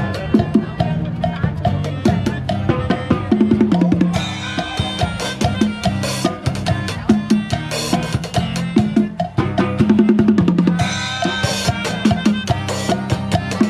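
A street busking band of acoustic guitars and a small makeshift drum kit plays an upbeat song, with regular drum hits and cymbal crashes over strummed chords.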